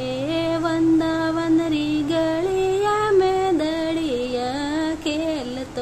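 A woman singing a Rajasthani devotional bhajan solo, holding long notes that slide up and down between pitches, with brief pauses near the end.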